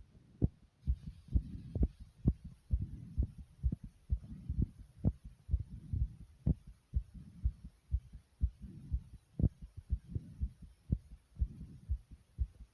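A racing human heartbeat: a fast, even run of low, dull thumps.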